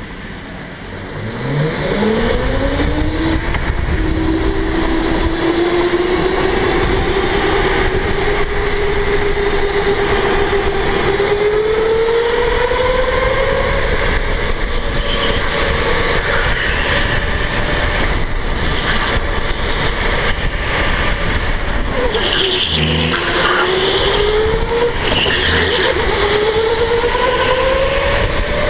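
Electric go-kart motor whining as the kart accelerates, its pitch climbing fast in the first couple of seconds, then holding and creeping up at speed. About 22 seconds in the pitch dips as the kart slows for a corner, then climbs again, over a steady rushing noise.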